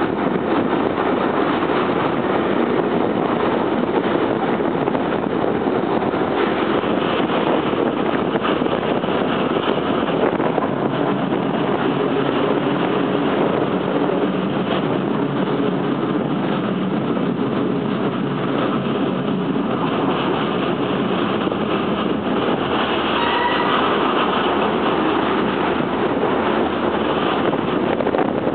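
Chemins de fer du Jura metre-gauge electric train running along a street-side track, heard from aboard at an open window as a steady rumble of running and wheel noise. A brief faint tone sounds about five seconds before the end.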